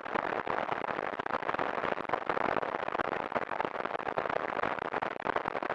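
Synthesized rain from a VCV Rack modular patch: white noise let through in very quick, frequent bits by a VCA that red noise opens, then band-passed and low-passed by two Tangents filters. It is a steady, staticky crunch of dense crackles, like rain hitting a roof and pavement.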